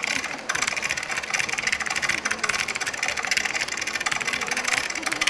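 Recorded engine noise, a steady, choppy running sound, played over the hall's speakers as part of the routine's soundtrack. It cuts off abruptly near the end.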